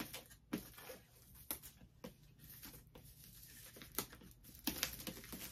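Faint scattered taps, scrapes and rustles as hands handle a cardboard MacBook Pro box and pick at its wrapping.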